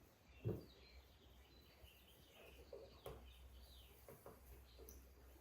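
Near silence: quiet room tone with faint bird chirps in the background and a soft click about half a second in.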